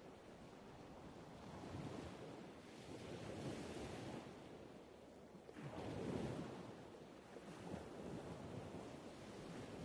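Waves washing on the beach, a soft surf noise that swells and fades every couple of seconds, the strongest swell about six seconds in, with wind on the microphone.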